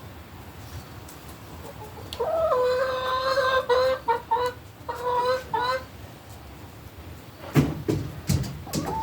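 A chicken calling: a long held note followed by several shorter broken calls. A few sharp knocks follow near the end.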